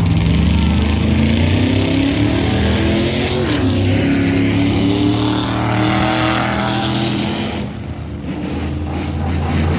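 Loud vehicle engine running steadily, its pitch shifting up and down, easing off for a moment near the end.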